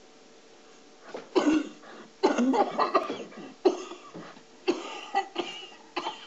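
A person coughing hard and repeatedly in several fits, starting about a second in.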